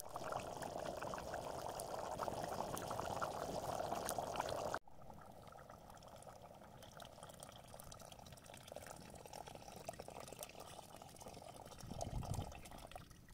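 Water boiling hard in a pot over a wood fire, a dense bubbling for the first few seconds; then, after a sudden cut about five seconds in, a quieter, steady pour of water from a copper kettle into the pot.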